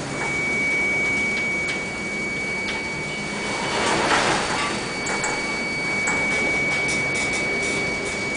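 Storm noise of wind and heavy sea heard from a ship's bridge, a steady rushing with a constant high whine running through it. Scattered clicks and rattles are heard, and a louder rush comes about four seconds in as a wave breaks over the bow.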